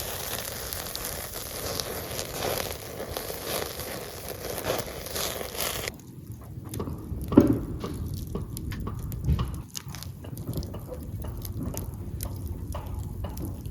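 Wood campfire crackling, with a dense crackling hiss for about six seconds. After a sudden change it gives way to a quieter stretch of scattered clicks and two louder knocks.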